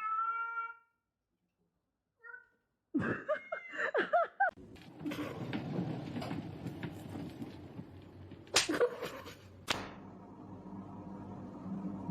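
A cat meowing several times, in short calls with breaks between them. Then a stretch of steady background noise with two sharp knocks.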